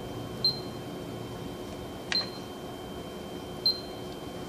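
Canon photocopier's touch-panel key beeps: three short, high beeps about a second and a half apart as its on-screen buttons are pressed, the middle one with a click, over a steady background hum.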